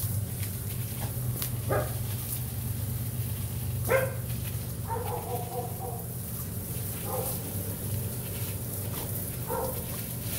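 Caramel mixed-breed dog giving about five short barks and yelps as it snaps at water from a garden hose, the sharpest about four seconds in and a longer whining one just after, over a steady low background noise.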